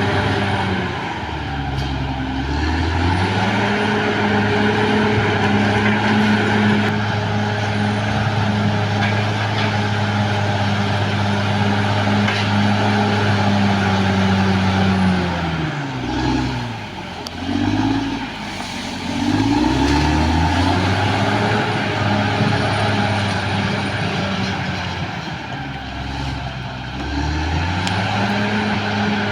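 Caterpillar D6R XL bulldozer's diesel engine working hard. It runs high and steady for long stretches, and its revs drop and climb back several times: just after the start, about halfway through, and again near the end.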